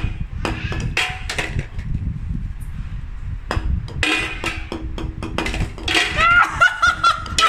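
Golf ball sound effects: a string of sharp clicks and knocks, thinner in the middle, then a run of short squeaky chirps that rise and fall near the end.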